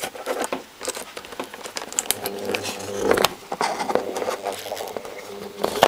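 Small metal and plastic parts of a dismantled electric fuel pump being handled and fitted together by hand. Irregular light clicks and scrapes come as the hard-to-turn motor is fiddled with.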